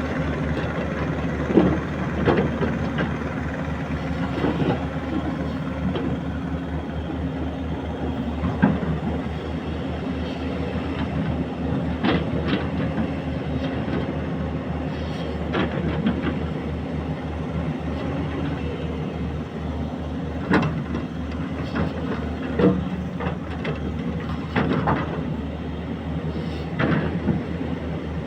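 Excavator engine running steadily, with about ten sharp knocks at irregular intervals.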